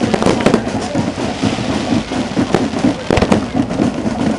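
Fireworks going off: a string of sharp bangs and crackling reports from bursting shells. Several come in quick succession just after the start, and another cluster comes about three seconds in.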